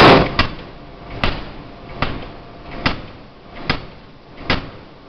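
2-ton open-die forging hammer striking a red-hot workpiece in a steady series of blows, about one every 0.8 seconds, the first blow the loudest.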